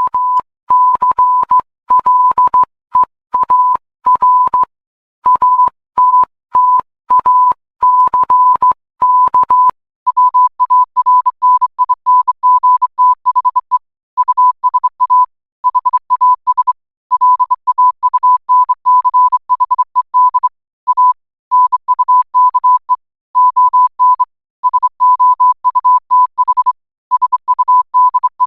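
Electronic alert tone near 1 kHz keyed on and off in irregular short and long beeps, in the manner of Morse code. The keying gets faster and denser about ten seconds in.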